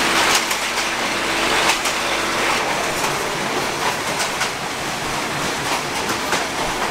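Diesel railcar commuter train running at speed, heard from inside a non-air-conditioned third-class carriage: a steady rushing rumble with irregular clacks from the wheels on the track.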